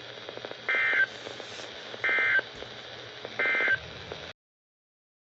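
EAS end-of-message code: three short bursts of warbling two-tone SAME data, each about a third of a second long and about 1.3 s apart, over radio hiss with faint crackle. The audio cuts off abruptly a little after four seconds.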